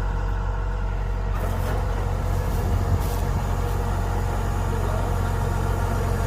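Kubota DC-105X combine harvester's diesel engine running steadily with a deep hum. About a second and a half in, the sound changes: a hiss of mechanical noise joins, with a couple of brief knocks.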